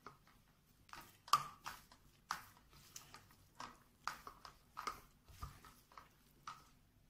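Hands kneading soft, oiled dough in a stainless steel bowl: irregular wet squelches and slaps, about two a second.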